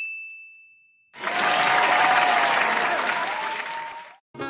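A bell-like ding rings out and fades over about the first second, then applause starts suddenly, runs about three seconds and cuts off abruptly.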